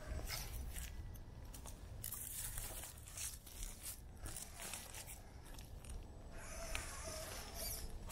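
Irregular crunching and scraping on dry trail ground, over a steady low rumble.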